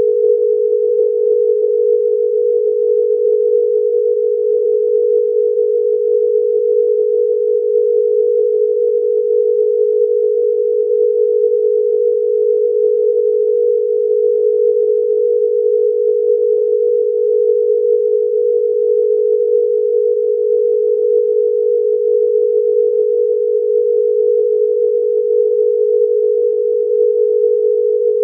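A single steady electronic sine tone at one unchanging pitch, held loud and without a break, like a broadcast off-air or test tone.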